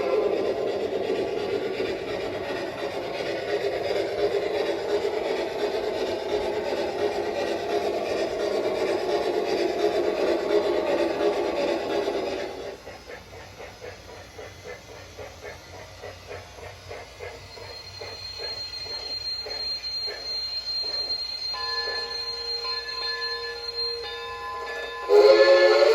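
Steam locomotive sound effects from a DCC sound decoder in a Bachmann Shay model engine. The first half is loud and dense. About halfway it drops to quieter, rapid, even chuffing, with steady tones joining later and a loud blast starting near the end.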